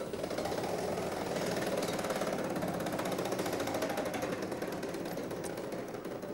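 Game-show prize wheel spinning, its metal pins clicking rapidly past the flexible pointer. The clicks come slightly further apart near the end as the wheel slows.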